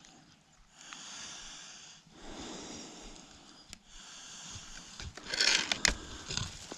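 A person breathing heavily, two long breaths, then a single sharp click about halfway through, followed by louder rustling and knocking near the end.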